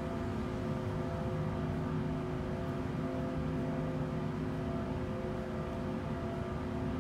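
Wrightbus StreetDeck Hydroliner hydrogen fuel-cell double-decker bus humming steadily while standing still, heard from the upper deck: an even hum with several steady tones over a low rumble.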